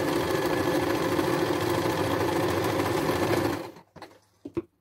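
Domestic sewing machine running steadily as it stitches a seam, stopping abruptly about three and a half seconds in, followed by a couple of faint clicks.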